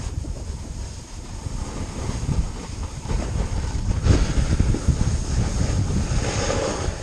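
Wind buffeting the microphone of a moving rider, a steady low rumble, with the hiss and scrape of a snowboard sliding over packed snow growing louder about four seconds in as the board turns.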